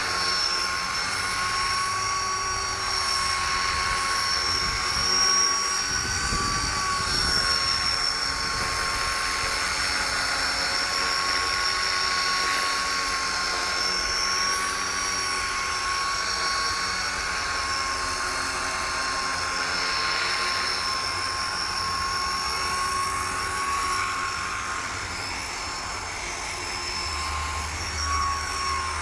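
Copter X 250 electric RC helicopter hovering: a steady high-pitched whine from its motor and rotor, wavering slightly in pitch as it is flown. The pitch dips briefly near the end.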